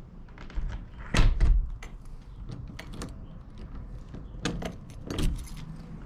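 Two short bursts of clicking and clattering with low thumps, about a second in and again near the end.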